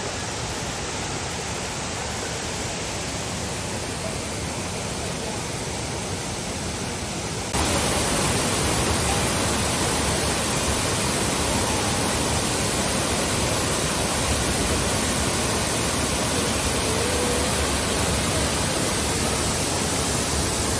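Waterfall: a steady rush of falling water that jumps suddenly louder about seven and a half seconds in.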